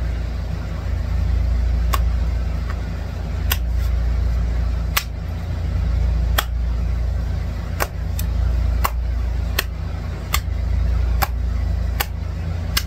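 Steady low rumble with sharp, light clicks about once a second.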